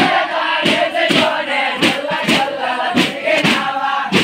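Group of men chanting and singing together over thappeta frame-drum strikes that come about every half second, part of a Thappeta Gullu folk song-and-dance performance.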